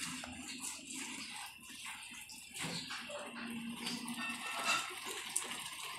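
Guinea pigs chewing lettuce and cabbage and rustling the leaves, heard as a steady run of crackly, crunching ticks.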